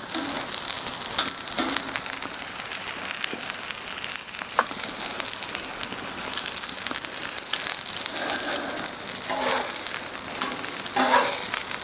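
Food frying and sizzling on a hot steel fire plate, a steady hiss with fine crackling. Near the end a metal spatula scrapes twice across the plate as it is slid under a grill-cheese patty.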